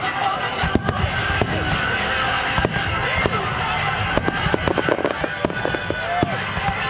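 Aerial fireworks going off in a rapid series of sharp bangs and crackles, thickest a little past the middle, with music playing underneath.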